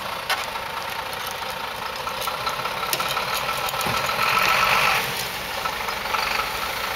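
Diesel engines running steadily during a recovery of a truck on ice, with scattered clicks and a louder swell of noise lasting about a second, around four seconds in.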